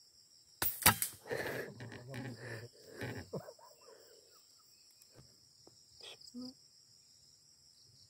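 A single sharp air rifle shot about a second in, followed by a few softer knocks and rustles, over a steady high chirring of insects.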